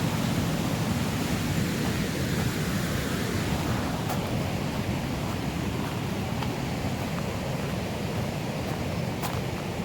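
Steady rush of the River Tees, running high and full after heavy rain.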